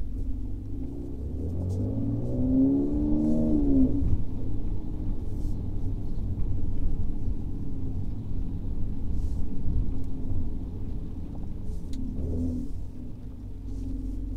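Mercedes-AMG C43's twin-turbo V6 with the AMG performance exhaust, heard inside the closed cabin in Sport Plus mode. It revs up with rising pitch for a couple of seconds, drops sharply at an upshift about four seconds in, then rumbles low while cruising, with a brief rise again near the end.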